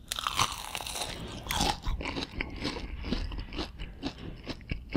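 Biting into a crispy breadcrumb-coated fried chicken nugget: two loud crunches in the first two seconds, then steady crunchy chewing.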